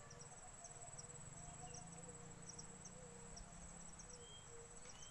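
Faint field ambience: insects in the grass keep up a steady high-pitched buzz, with faint short chirps over it.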